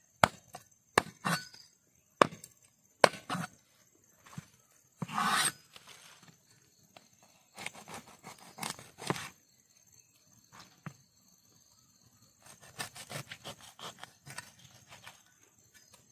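Knife and cleaver knocking and scraping on a plastic cutting board as a silver barb is trimmed and cleaned: scattered sharp knocks, a short rasp about five seconds in, and a run of quick scraping strokes near the end.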